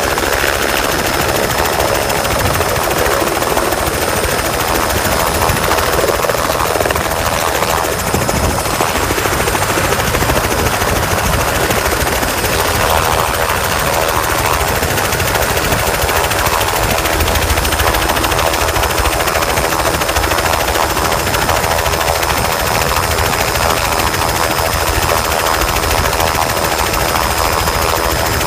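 Helicopter turbine and main rotor running loud and steady as the machine settles onto the snow and keeps running on the ground, with a steady high whine above the rotor noise.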